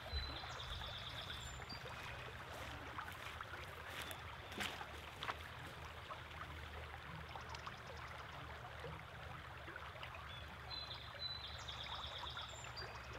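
Shallow river flowing over its bed: a faint, steady rush of running water.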